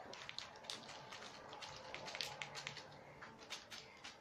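Faint, irregular light clicks and taps, several a second, with no voices.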